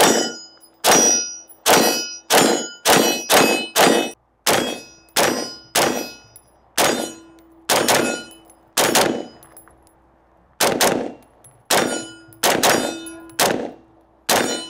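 Desert Tech MDR-X bullpup rifle firing a fast string of about twenty shots, some coming in quick runs and others spaced out, with a pause of about a second and a half past the middle. Each shot is a sharp crack with a short echo tail.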